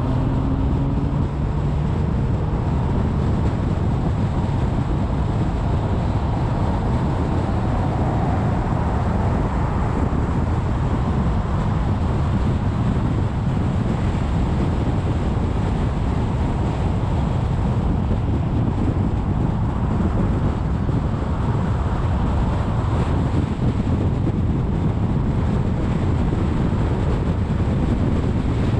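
Steady low rumble of wind and tyre noise from a car driving at freeway speed, picked up by a camera mounted outside on the hood, with wind on the microphone.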